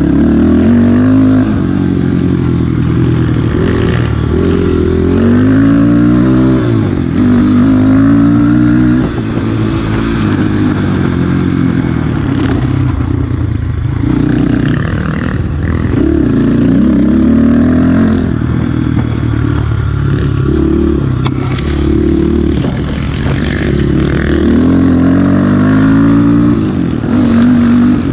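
Dirt bike engine being ridden on trails, revving up and easing off over and over as the throttle is worked, each rise in pitch lasting a second or two. A short sharp knock about 21 seconds in.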